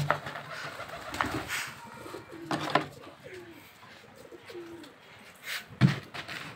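Domestic pigeons cooing: several short, low calls that bend in pitch, with a few sharp knocks among them; the loudest is a thump near the end.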